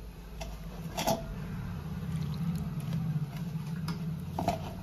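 Hand rubbing spiced gram flour in a steel bowl, with two light knocks against the bowl, about a second in and near the end, over a steady low hum.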